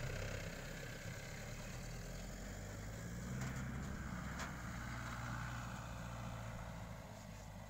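Mahindra Bolero Camper pickup's diesel engine running steadily as the truck drives off up a grassy slope. It swells a little about halfway through and fades near the end as it moves away.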